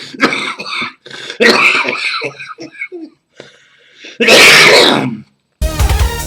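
A man coughing and hacking hard in several rough fits, the loudest and longest about four seconds in. Electronic music with a heavy beat cuts in near the end.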